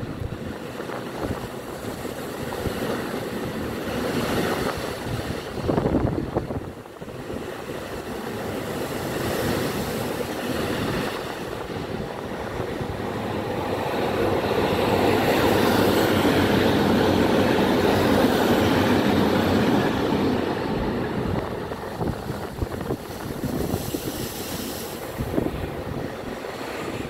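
A four-car Class 150 diesel multiple unit passing on the sea-wall line, just pulling away from a station. Its underfloor diesel engines build to their loudest about halfway through, then fade. Heavy surf breaks against the sea wall, with wind on the microphone, surging especially a few seconds in.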